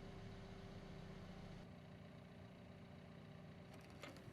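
Near silence: a faint, steady low machine hum that drops lower about a second and a half in, with a couple of faint clicks near the end.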